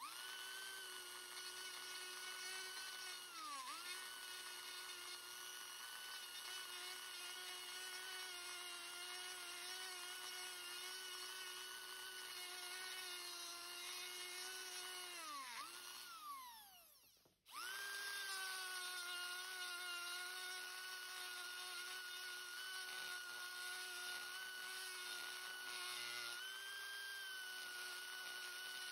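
Small handheld rotary tool with a spherical burr grinding into pine knot wood: a steady high-pitched motor whine. It dips briefly about four seconds in. About sixteen seconds in it winds down to a stop, then starts straight back up and runs on steadily.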